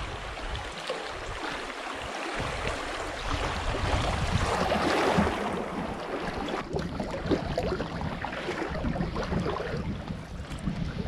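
River water rushing and splashing around a kayak's hull as it runs through shallow riffles, with wind rumbling on the microphone. The water is loudest about five seconds in, then turns choppier with short splashes.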